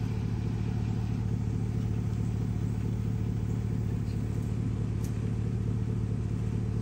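A car engine idling steadily, a low even hum with no change in speed.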